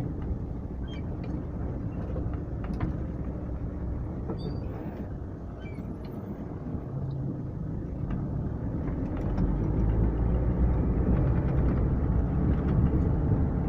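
Vehicle driving along a rough road, heard from on board: a steady low rumble of engine and road noise with scattered small rattles, growing louder about nine seconds in.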